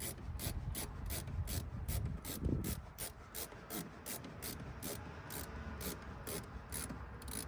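Ratcheting Phillips screwdriver driving a screw into a car door speaker mount: an even run of sharp ratchet clicks, about four or five a second, with the rub of the screw turning beneath.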